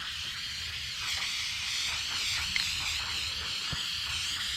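Aerosol spray-paint can hissing steadily as a coat is sprayed on, a little stronger from about a second in.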